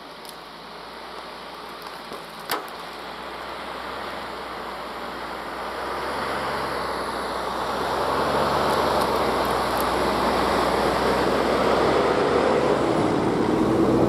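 GAZ Sobol 4x4 van with automatic gearbox driving through deep untracked snow in low range with all differential locks engaged, on tyres aired down to about half an atmosphere. Its engine hum and the noise of the van pushing through the snow grow steadily louder as it approaches and passes close by.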